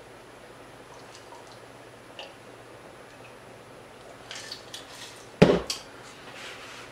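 Faint sips and small clicks from drinking out of a glass, then a sharp knock about five and a half seconds in as the glass is set down on the table.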